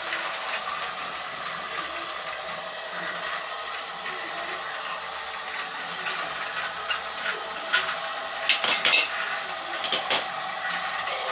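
Lego Duplo battery-powered toy train running on plastic track: a steady motor whir, with a cluster of sharp plastic clicks and clacks from about eight to ten seconds in.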